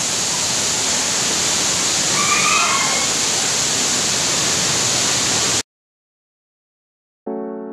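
Waterfall pouring down close by, a steady rushing roar of water. It cuts off suddenly about five and a half seconds in, and after a short silence music with sustained chords begins near the end.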